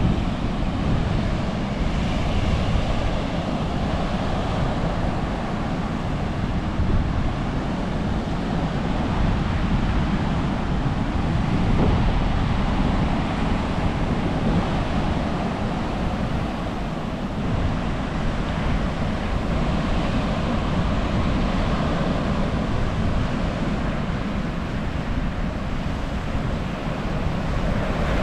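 Ocean surf washing onto a sandy beach, with wind buffeting the microphone as a steady low rumble.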